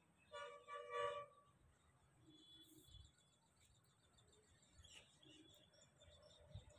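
Near silence, broken about half a second in by two quick horn toots, the second louder, lasting under a second in all.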